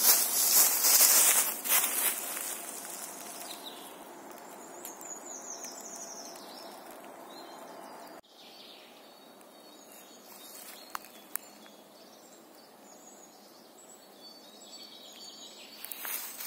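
Footsteps crunching through dry leaf litter for the first two seconds, then birds chirping over a quiet woodland background, with two sharp clicks about eleven seconds in and another brief rustle near the end.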